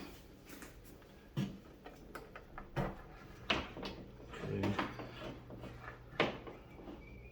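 Scattered clicks and knocks of computer parts being handled on a test bench, as the power is shut off and the board readied for a CPU swap: about five sharp knocks a second or more apart, with a duller thud near the middle.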